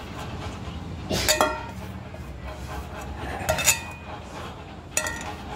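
A stainless-steel bowl and a pan clinking together as grated potato is scraped from one into the other, in three short clusters of knocks: about a second in, midway, and near the end. Each knock leaves a brief metallic ring.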